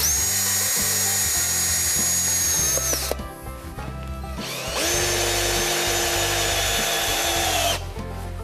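Cordless drill driving screws into a wooden mailbox mount: two runs of about three seconds each, with a short pause between, each winding down as it stops. Background music underneath.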